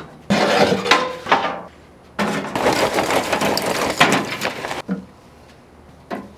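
Lump charcoal poured from a paper bag into a metal chimney starter in a grill's firebox, a rattling clatter of pieces hitting metal for about two seconds. A shorter burst of clattering comes just before it, and a single knock near the end.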